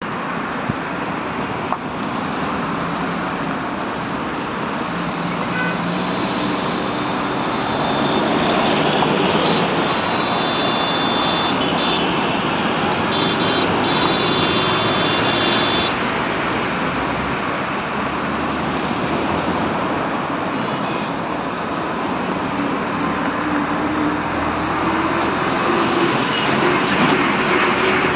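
Steady traffic noise from a slow, congested queue of trucks and cars on a highway: engines running and tyres on the road, with a truck's engine hum rising slightly near the end.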